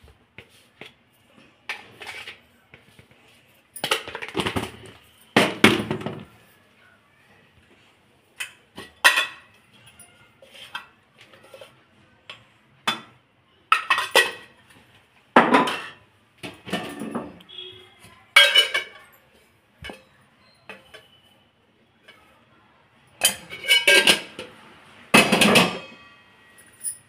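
Kitchen utensils clinking and knocking as spices are spooned into an aluminium cooking pot: irregular metal clinks, some in quick clusters, a few ringing briefly.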